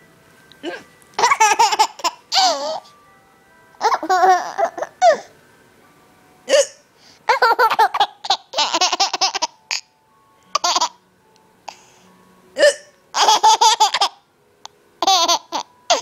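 Mother and young daughter laughing in several loud bouts, broken by short, sharp hiccups between them.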